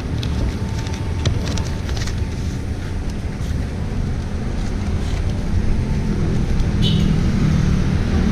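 A motor running with a steady low rumble, with a few light clicks and rattles over it.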